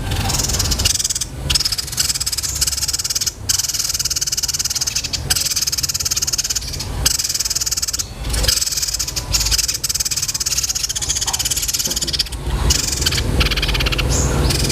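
A small songbird singing a fast, high-pitched rolled trill, like the chatter of fighting house sparrows, broken by a few brief pauses. A low hum runs underneath.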